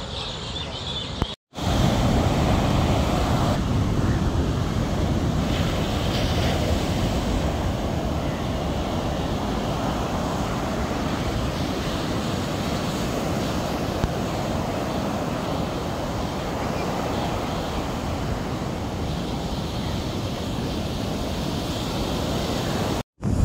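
Ocean surf breaking and washing up a sandy beach, a steady rushing wash with wind buffeting the microphone. The sound drops out completely for a moment about a second and a half in and again near the end.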